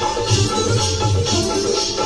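Recorded music with a steady beat, about two beats a second, percussion under a sustained melody.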